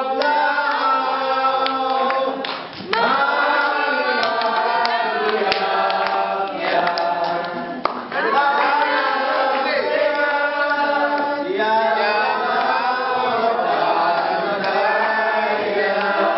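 A group of people singing together without instruments, in phrases with short breaks about three and eight seconds in.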